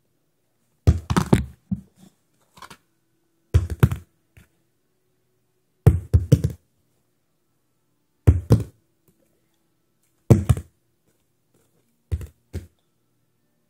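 Small plastic bottle of bubble solution being flipped and landing on the floor: six short clusters of knocks about every two seconds, each a thunk followed by a few quick bounces or tips.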